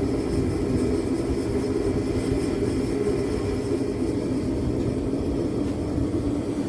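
Bauer forced-air propane heater running just after ignition: its fan and burner flame make a steady, even rumble.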